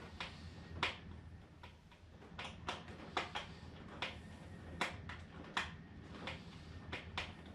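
A dozen or so sharp, irregular clicks and ticks from hands working on the plastic and foam fuselage of a model airplane during assembly.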